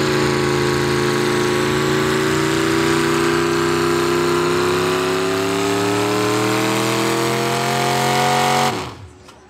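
A pull truck's engine runs hard as the truck drags a weight-transfer sled down the track. Its pitch climbs gradually through the second half, then cuts off suddenly near the end.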